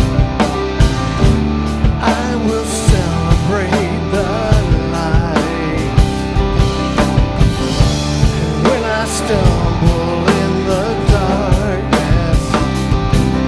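Live worship band playing a rock-style song with a steady drum-kit beat, guitars and keyboards, and a sung vocal line.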